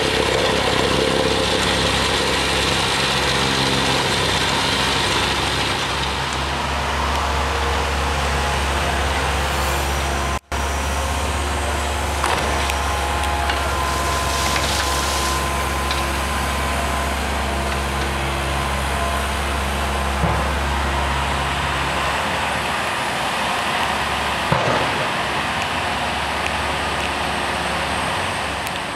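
Tracked hydraulic excavators' diesel engines running steadily on a demolition site, with a couple of short knocks in the second half. The sound is broken once by a brief dropout about a third of the way in.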